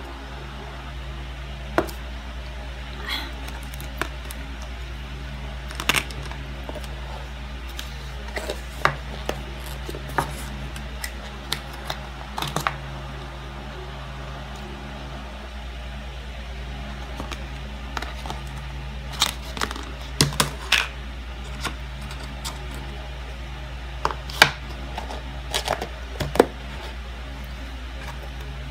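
Irregular small clicks and taps of someone eating a fast-food breakfast, handling the cup, packaging and plastic cutlery, over a steady low hum.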